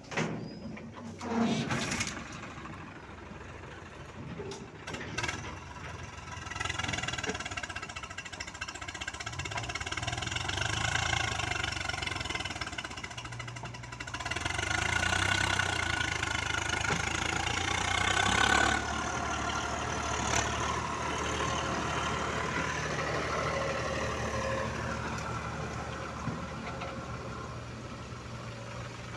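Diesel engines of a JCB 3DX backhoe loader and a Swaraj 742 tractor running while earth is loaded into the tractor's steel trolley. A few knocks in the first seconds come from earth and stones dropped into the trolley. The engine noise then swells twice and eases as the loader works.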